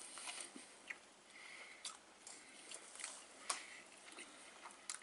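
Faint chewing and mouth sounds of a man eating a bite of smoked beef brisket, with a few soft clicks.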